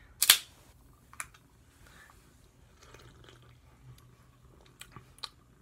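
A soda can cracked open with a sharp pop and a short fizz of carbonation about a third of a second in, followed by quiet sips and swallows of the soda, with a couple of small clicks of the can near the end.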